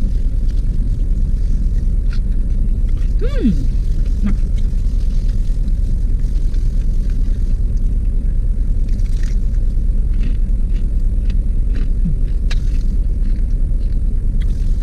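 Steady low rumble inside a parked car's cabin, with a few faint crunches and clicks from eating crispy fried chicken. A brief falling tone sounds about three seconds in.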